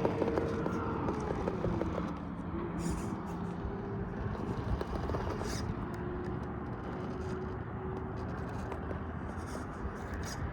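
Brushless motor of an Axial SCX10 III early Bronco RC crawler (Hobbywing Quicrun Fusion SE) whining steadily as the truck crawls over rock, its pitch dropping a little about a second and a half in. Faint ticks and scrapes run underneath.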